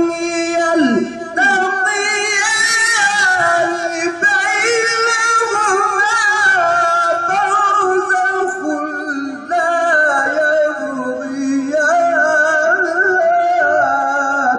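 A man's solo voice reciting the Quran in the melodic tajweed style, holding long ornamented notes with short pauses for breath.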